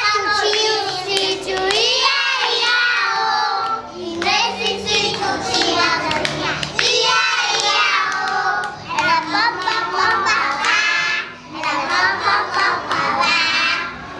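A group of young children singing a song together, with hand clapping.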